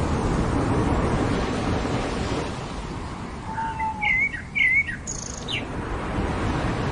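Ocean surf washing onto a beach, loudest in the first two seconds and then ebbing away, with a songbird calling over it about halfway through: a short steady whistle, then a quick run of warbling chirps and a couple of high thin notes.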